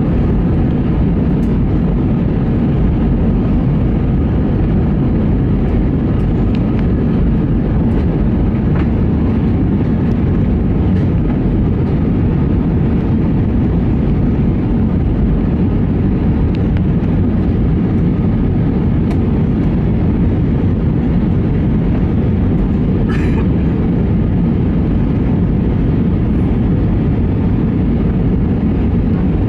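Steady cabin noise of an Airbus A320 descending: an even low rush of airflow and jet engines, heard from a window seat over the wing.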